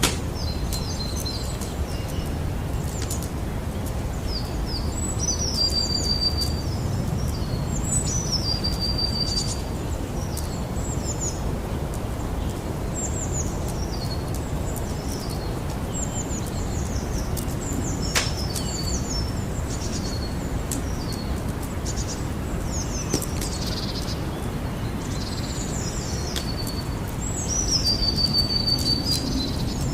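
Campfire burning with a steady low rumble and a few sharp pops, one standing out about eighteen seconds in. Over it a songbird sings short high phrases again and again, each a quick downward slur ending on a held note.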